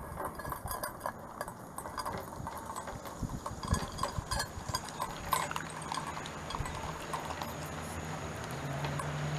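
A Shiba Inu eating and licking from a stainless steel dog bowl: quick irregular clicks and clinks of food and tongue against the metal.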